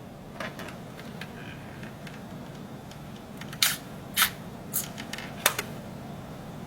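Small electric gear motors of a 1/35 RC-converted model tank running with a steady low hum, with a few sharp clicks in the second half.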